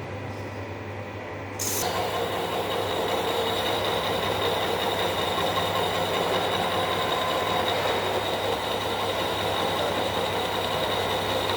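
Metal lathe running with a steady low motor hum; a little under two seconds in, a louder, steady machining noise with a high whine sets in and keeps going.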